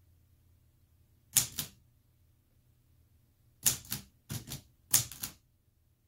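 Keys of an old manual portable typewriter struck one finger at a time: sharp metallic clacks come in pairs, one pair about a second and a half in, then three more pairs close together over the last two seconds.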